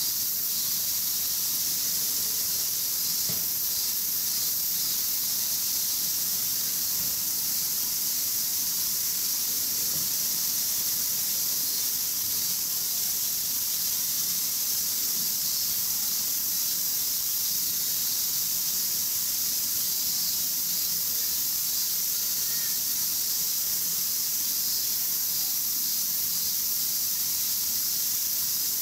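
A chorus of summer cicadas: a steady, high, unbroken hiss.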